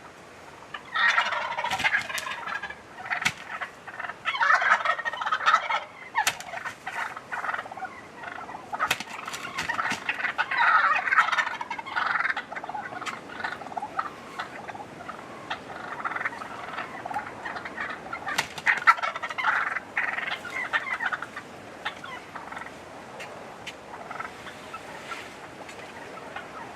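Wild turkey toms gobbling loudly, one rattling gobble after another in several bursts, the calls fading after about 21 seconds.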